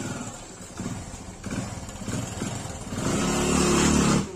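Motorcycle engine running, getting much louder for about a second near the end as it is revved, then dropping away suddenly.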